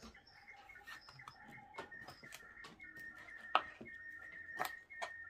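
Kitchen knife cutting chayote and knocking on a cutting board, a few scattered clicks with the two sharpest about three and a half and four and a half seconds in. A faint steady high tone runs underneath.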